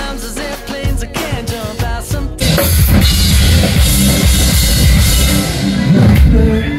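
Rock band music with drums and singing. About two and a half seconds in, the full band comes in louder with crashing cymbals and a heavy bass drum.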